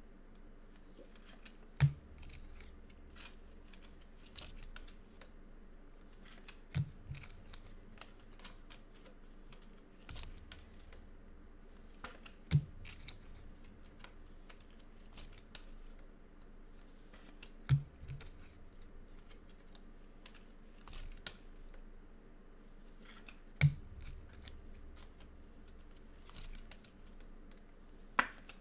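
Trading cards being slipped into plastic sleeves on a desk: soft plastic rustling, with a sharp tap about every five seconds, six in all.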